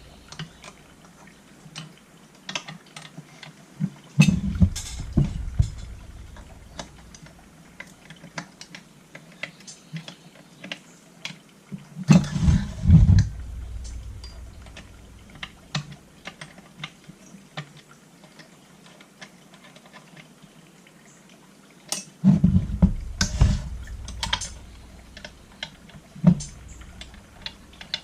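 Small tools clicking and tapping on the chainsaw's metal while the carburettor mounting bolts are tightened, with three spells of heavier bumps and knocks on the bench.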